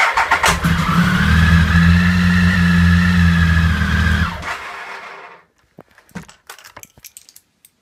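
Electric starter turning over a 2005 Triumph Speed Triple 1050's three-cylinder engine through the repaired starter sprag clutch: a steady hum with a whine for about four seconds, then it stops and winds down. A few clicks and knocks follow near the end.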